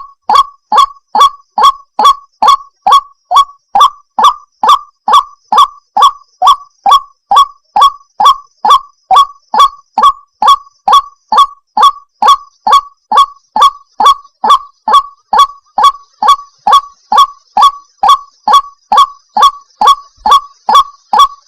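White-breasted waterhen (ruak-ruak) calling, a monotonous 'wak' note repeated evenly a little over twice a second.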